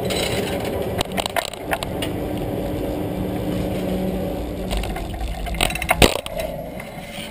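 Chairlift machinery running with a steady hum. The downhill bike hanging on the lift's hook knocks and rattles against it, in a short cluster of clanks about a second in and again near the end, the loudest about six seconds in.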